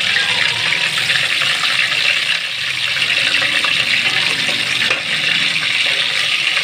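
Raw beef pieces sizzling and crackling in hot oil in a steel pot; a loud, steady frying hiss.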